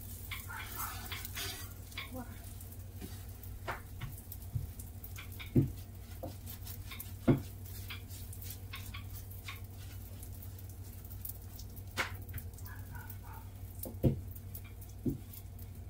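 Faint sizzling of dhal puri cooking on a hot tawa, over a steady low hum. Several short, sharp knocks come at irregular intervals.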